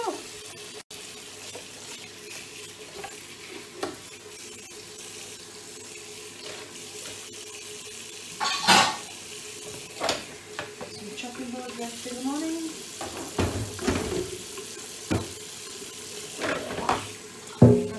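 Dishes and utensils knocking and clattering now and then during washing up at a kitchen sink, over a steady low hiss; the loudest knock comes near the end.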